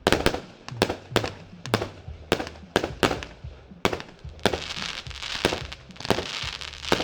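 A 100-shot 20 mm fireworks battery (Triplex TXB546 Powerful Fire) firing, with sharp reports about two to three a second. From about four and a half seconds in, a dense crackling hiss from crackling-crown shells runs under the reports.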